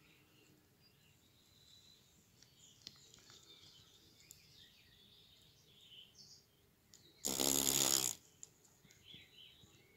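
Cockchafer beating its wings in one loud buzz lasting about a second, about seven seconds in, without taking off. Faint bird chirps in the background.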